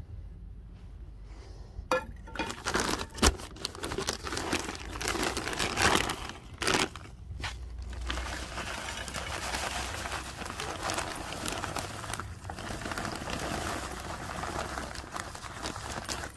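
Bag of mesquite wood chips crinkling and rustling as it is handled, with a few sharp clicks. About halfway through, the chips pour from the bag into a small skillet in a steady rustling stream.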